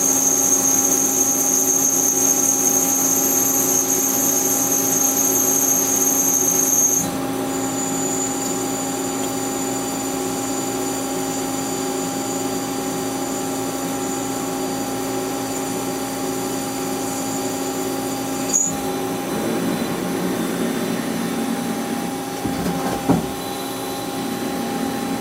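CNC lathe running through a boring cycle: a steady machine hum with a high whine that drops in level and shifts slightly higher in pitch about seven seconds in. A sharp click comes about three quarters of the way through, and a brief knock near the end.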